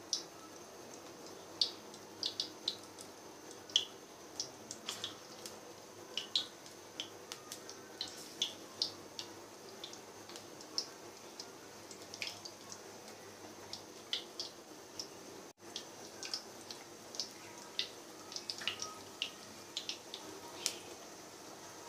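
Batter-coated potato pakoras deep-frying in hot oil in a kadai on a low flame: a faint steady hiss with irregular small pops and crackles, at times several a second.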